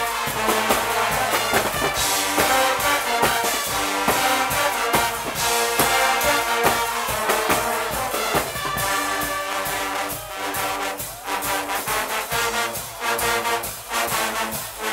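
Guggenmusik brass band playing: trumpets and trombones blaring a tune over a steady drum beat.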